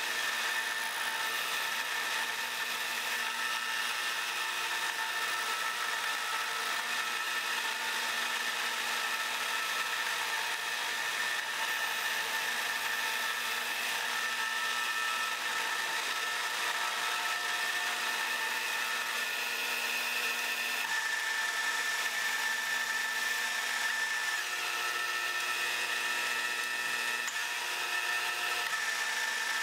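Metal lathe running while its cutting tool faces off the end of a 12L14 steel bar: a steady machine whine of several tones over the hiss of the cut.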